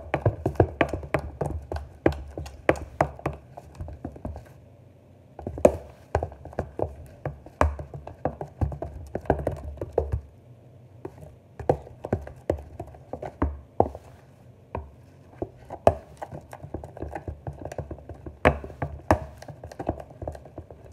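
Slime mixture of glue, shaving cream and paint being stirred by hand in a clear plastic tub: quick, irregular taps and knocks of the stirring tool against the plastic, with a couple of short pauses.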